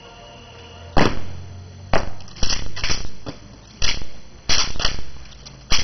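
Sharp slaps and knocks from an honor guard's rifle drill: rifles smacked against gloved hands and struck down, in an uneven series of about ten strikes. The first strike comes about a second in, and several come in quick clusters, each with a short ringing tail.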